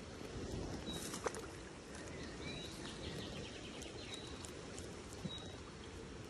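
Steady hiss of outdoor ambience in the rain, with short thin bird calls several times and a quick faint run of notes in the middle.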